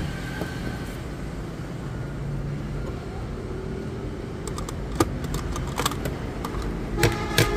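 Clicks and knocks from a National RX-5060 cassette boombox's case and cassette door being handled as the set is opened up. There is a sharp click at the start, another about five seconds in, and a few more near the end, over a steady low hum.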